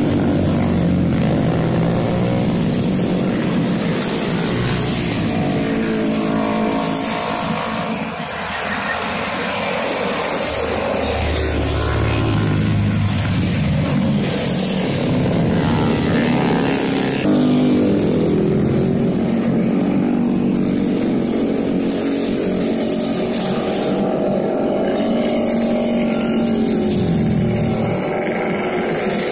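A steady stream of motorcycles, mostly small automatic scooters with a few sport bikes and the odd car, passing close by one after another. Their engines overlap, each rising and falling in pitch as it goes by.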